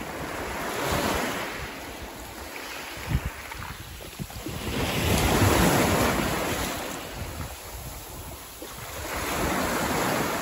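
Small sea waves breaking and washing up a pebble beach, surging and fading three times, the loudest about halfway through. Wind rumbles on the microphone underneath.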